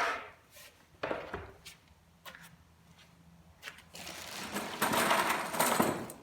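Cabinet parts and hardware being handled on a work surface: a few light knocks, then about two seconds of rustling and scraping near the end.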